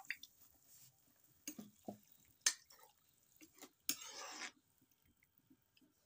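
Curry with greens simmering in a pot, giving scattered soft bubbling pops and drips, with a sharp click about two and a half seconds in and a brief wet rustle about four seconds in.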